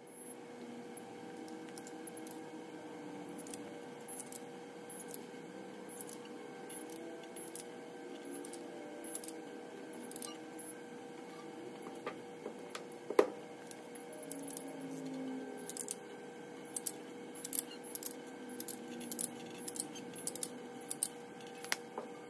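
Light metallic clicks and clinks of metal engine parts and tools being handled, scattered irregularly, with one sharper clink about thirteen seconds in, over a steady background hum.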